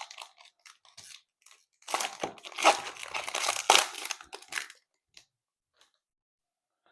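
Trading-card pack's foil wrapper being torn open and crinkled. A few light crackles come first, then about two seconds in a dense stretch of crinkling and tearing that stops short, about two seconds before the end.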